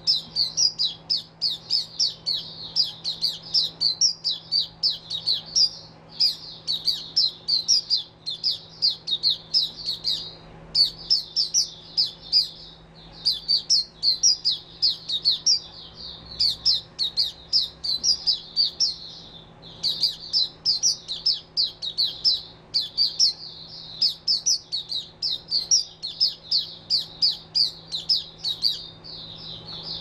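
White-eye (mata puteh) singing a fast, high twittering song. The song comes in phrases of a few seconds each, broken by short pauses.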